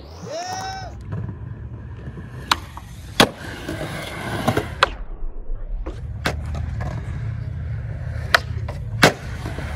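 Skateboard wheels rolling on concrete with a steady low rumble, broken by about six sharp clacks of the board popping, landing and hitting ledges.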